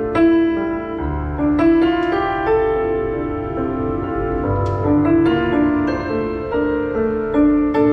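Roland HP508 digital piano played in its piano voice: a slow melody of held, ringing notes over low bass notes.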